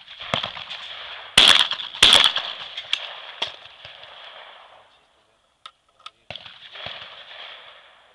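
Over-and-under shotgun firing two shots in quick succession, about 0.7 s apart, a skeet double; each shot is followed by a long echo. A few sharp clicks follow later, as the gun is broken open.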